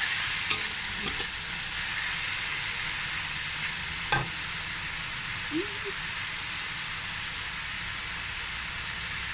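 Beef and vegetables sizzling steadily in a wok while a spatula stirs them, with a few sharp clacks of the spatula against the wok in the first second or so and another about four seconds in.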